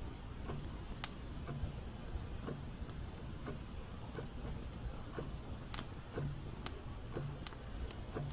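Steady ticking at about one tick a second, with a few sharper, brighter clicks over it.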